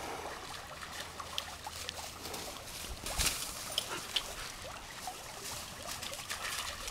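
A red heeler puppy digging and nosing in loose sand: a string of short scratches and scuffs, with a louder scuff about three seconds in, over the faint trickle of a creek.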